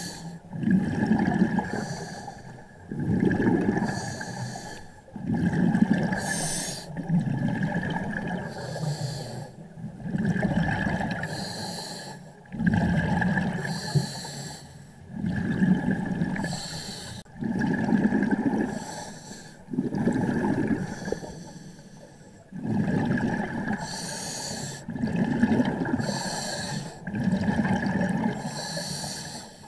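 Scuba diver breathing through a regulator underwater: hissing inhalations and rumbling exhaled bubbles alternate in a steady rhythm, a surge about every one and a half to two seconds.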